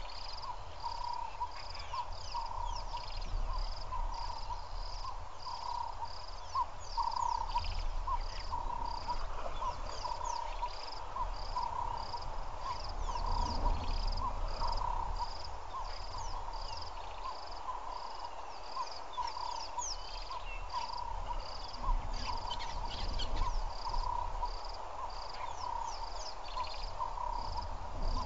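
Frogs and insects calling in a steady rhythm of pulsed calls, a lower one and a high-pitched one, about three pulses every two seconds, with short chirps above and a low rumble underneath.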